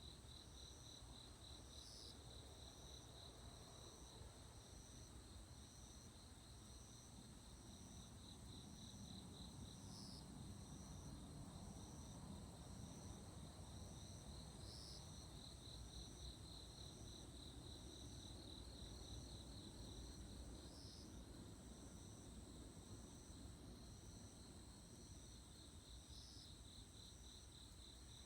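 Crickets chirping in the night, several steady fast high trills with a slower pulsing call about once a second. A faint low rumble lies underneath and swells a little in the middle.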